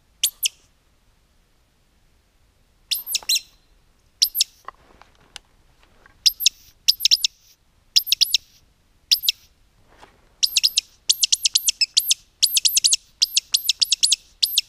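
Woodcock call blown in sharp, high, squeaky chirps imitating woodcocks, to lure a roding woodcock flying past. The chirps come singly and in pairs at first, then in a fast run of many chirps over the last four seconds.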